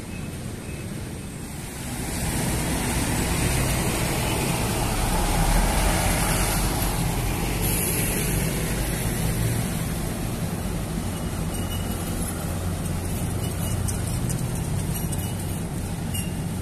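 Road traffic noise from passing vehicles on a busy street, swelling about two seconds in and staying loud.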